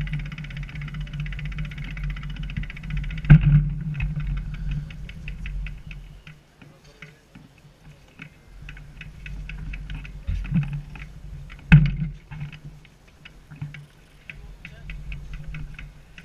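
Bicycle freewheel ticking rapidly as the bike is walked, sparser and fainter after about four seconds, over a steady low hum. Two sharp knocks, about three and twelve seconds in.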